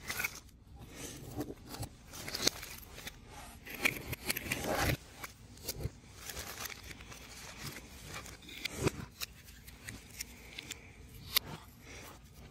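3D puzzle pieces being handled, pressed out and slotted together: irregular small clicks and short scraping, tearing-like rubs, with the longest scrape about four to five seconds in.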